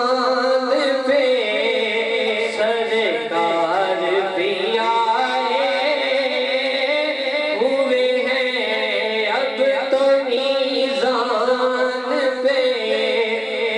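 A man's voice singing devotional verse in long, held, wavering melodic lines.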